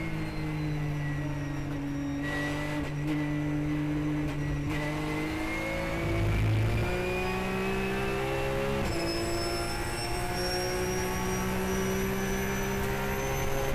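In-car sound of a Porsche 911 GT3 Cup race car's flat-six engine. The pitch falls as the car slows in fourth gear, holds through a corner, then climbs under full throttle. There is a brief low rumble about six seconds in as the car rides over a kerb, and a shift up to fifth about nine seconds in.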